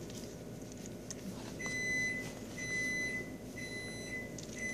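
Electronic beeping: a steady high-pitched tone in four even beeps, each a little over half a second long and about one a second, starting about a second and a half in.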